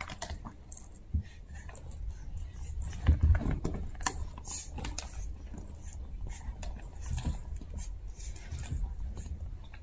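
Two chihuahua puppies playing with toys on carpet: scuffling paws, rustling plush and rope toys and small knocks, in uneven bursts. A louder scuffle comes about three seconds in, as one grabs and shakes a plush toy.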